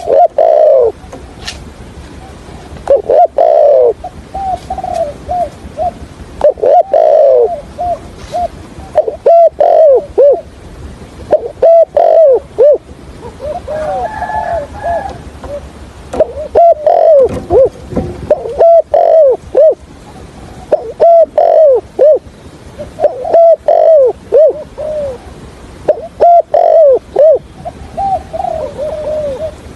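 Spotted dove cooing: loud, repeated phrases of several quick, arched coo notes, a new phrase every two to three seconds.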